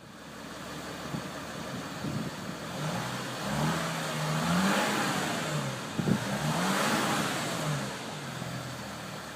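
Audi SQ5's V6 being revved, its engine note boosted through the active sound actuators. The revs rise and fall several times, peaking about halfway through and again a couple of seconds later.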